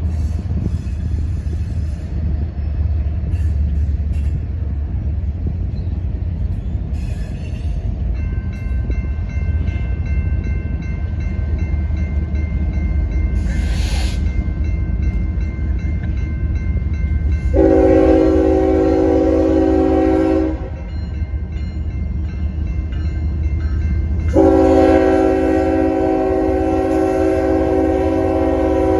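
Norfolk Southern freight train's locomotive air horn sounding two long chord blasts, the first about three seconds long a little past halfway, the second starting near the end and still sounding as it closes, over the steady low rumble of the moving train.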